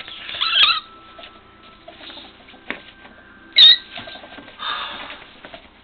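Ferrets play-fighting in a soft fabric pet bed: two short, loud squeaks, one just under a second in and one a little past halfway, with light scuffling in between.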